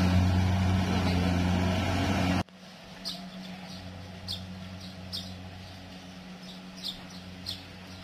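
Kubota rice combine harvester's engine running steadily, cut off abruptly about two and a half seconds in. Then a faint low hum, with a bird giving short high chirps about five times.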